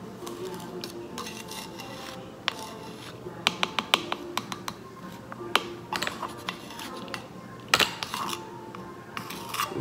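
Plastic measuring spoons on a ring clicking and scraping against the rim of a baking soda can while a spoonful is scooped and levelled: a string of small sharp ticks, a quick run of them midway and a louder click near the end.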